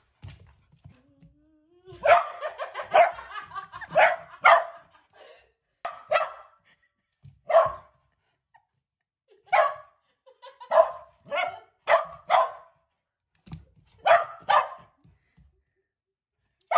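Dog barking in play at a laser pointer dot: sharp barks, often in quick pairs, with a rapid flurry about two seconds in, then a pair every second or two.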